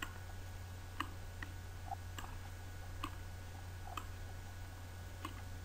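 Faint computer mouse clicks, about ten at irregular spacing, as video clips are dragged onto an editing timeline. A steady low electrical hum runs under them.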